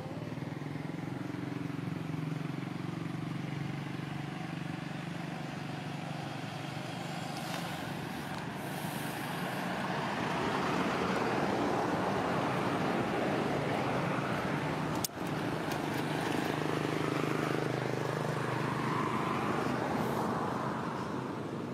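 A motor vehicle's engine running with a steady low hum, swelling about halfway through and easing off near the end. A single sharp click comes about fifteen seconds in.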